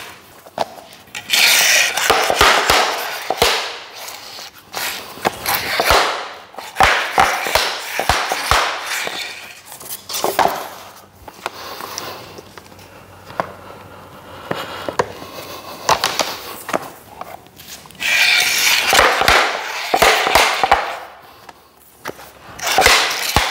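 A tapping block being struck hard to knock vinyl plank locking joints together: runs of several sharp knocks, with stretches of rubbing noise between them.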